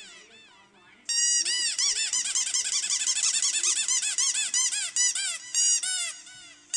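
Squeaky toy squeaked over and over in quick succession, a rapid run of high rising-and-falling squeaks that starts about a second in and stops just before the end.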